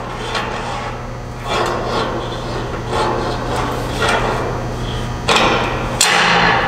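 Metal mounting brackets and bolts being handled and fitted onto a CNC table leg: irregular knocks, clinks and scraping, loudest in two bursts near the end.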